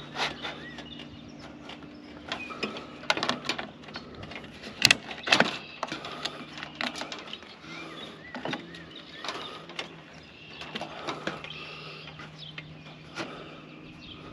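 Hand tin snips cutting the corner of metal rake flashing: irregular snips and clicks as the blades shear the thin sheet metal, the sharpest two about five seconds in. A steady low hum runs underneath.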